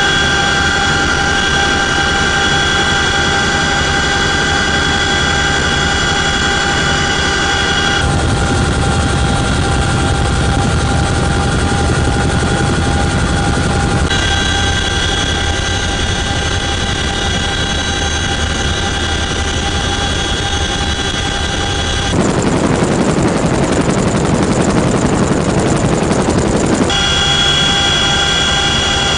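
Cabin noise of a CH-47F Chinook twin-turbine, tandem-rotor helicopter in flight: a steady high whine of the turbines and transmission over a low rotor rumble. The sound changes abruptly several times. For about five seconds near the end, a louder rushing noise without the whine takes over.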